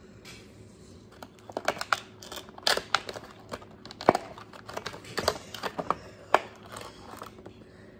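A plastic action figure being handled and turned over: irregular sharp clicks and taps of plastic with short rustles.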